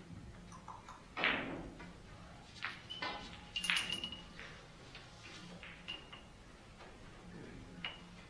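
Cue strikes and billiard balls clicking together during keglebillard play: a heavier knock about a second in, then a string of sharp clicks, one of them ringing briefly near the middle.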